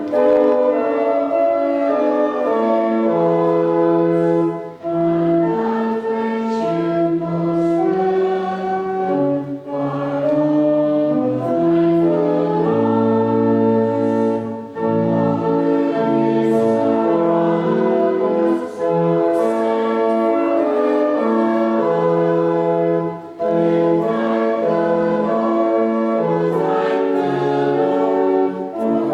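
Church congregation singing a hymn with instrumental accompaniment, in held chords that change at a slow, steady pace.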